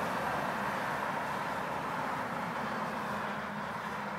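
Steady noise of passing vehicle traffic, slowly fading.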